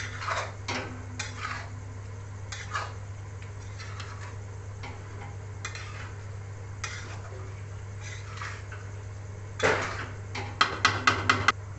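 Biryani rice being stirred and turned in a steel pan, with scattered scrapes and clinks of metal on the pan. Near the end comes a louder scrape, then a quick run of about six sharp metallic clinks.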